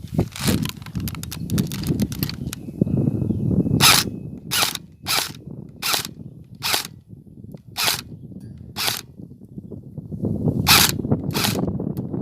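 Airsoft gun firing single shots, each a sharp clack: about ten in all, a few near the start, a rapid run spaced well under a second apart in the middle, and two more near the end. A low rumble of movement lies underneath.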